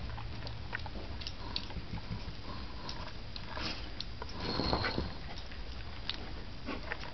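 Bernese mountain dogs play-fighting at close range: scattered small clicks and scuffles, with a louder scuffle about four and a half seconds in.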